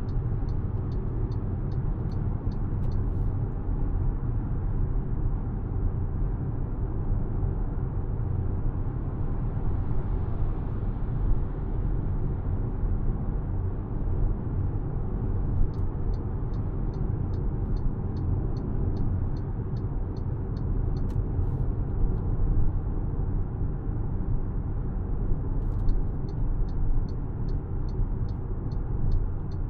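2025 MG HS on the move: steady low road and engine rumble. A regular ticking of about three a second, the turn-signal indicator, sounds at the start, again about halfway through, and near the end.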